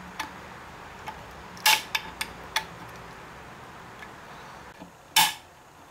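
Screwdriver tip clicking and scraping against a steel snap ring as it is pried out of its groove to free the planetary gearset in a 42RH/A500 automatic transmission. There are a handful of sharp metallic clicks, scattered across the first three seconds, and the loudest about five seconds in.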